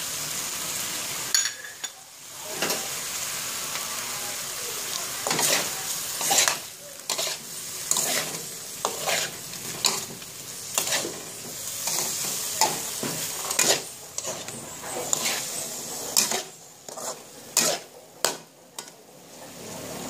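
Metal spatula scraping and knocking against a wok while stir-frying vegetables and fish, over a steady sizzle of hot oil. The strikes come irregularly and closer together near the end.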